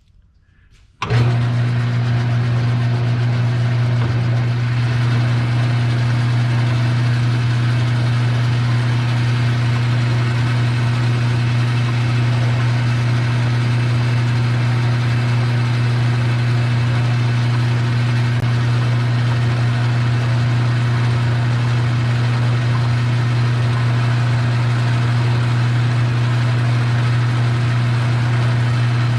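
Metal lathe switched on about a second in, its motor then running at a steady speed with a strong, even hum.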